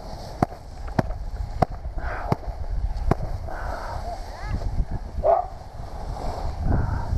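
Wind rumbling on the microphone of a body-worn camera, with a run of sharp clicks during the first three seconds and a few short, muffled voice sounds later.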